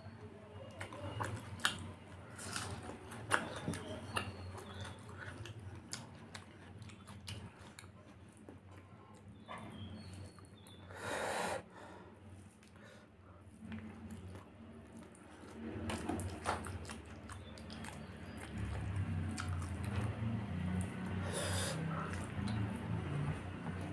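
Eating rice and fried chicken intestines by hand from a metal tray: fingers mixing and scooping food with scattered small clicks, then mouth-full chewing. There is a short breathy hiss a little past halfway, and a low hum over the chewing through the last several seconds.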